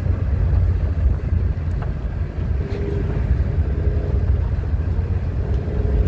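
Steady low rumble of a road vehicle on the move, with a faint hum that comes and goes.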